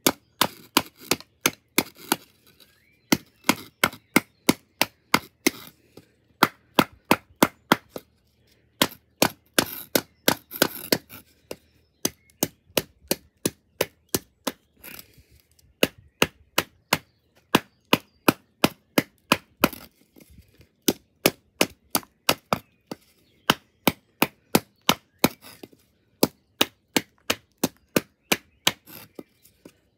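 Kitchen knife being driven into a piece of hard wood with repeated sharp blows, about three a second, broken by short pauses. A rougher, longer crunch comes about ten seconds in.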